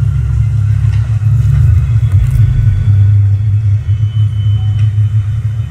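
Deep, steady rumbling drone from a film soundtrack playing on a TV and picked up in the room, with the sound centred in the bass.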